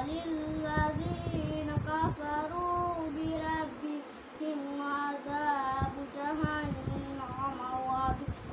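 A young boy chanting Quran recitation in Arabic, drawing out long melodic notes in phrases, with a short pause for breath about four seconds in.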